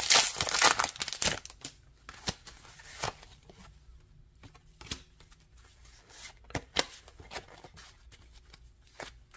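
Foil booster-pack wrapper crinkling and tearing open for about the first second and a half, then a scattering of light clicks and taps as the trading cards from the pack are handled.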